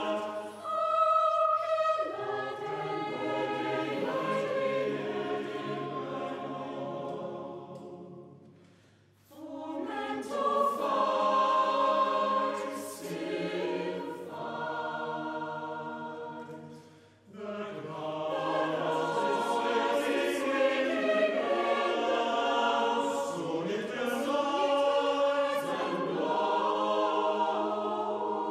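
Mixed chamber choir singing unaccompanied in sustained, layered chords. The phrases die away almost to silence about nine seconds in and again about seventeen seconds in, before the next phrase enters.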